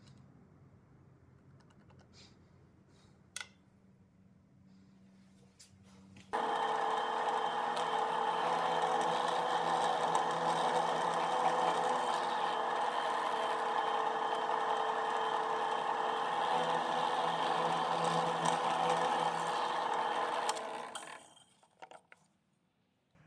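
Drill press motor starting about six seconds in, then running steadily with a constant pitch while its bit bores into pine, and winding down near the end. Before it starts there are a few light ticks and one sharp tap.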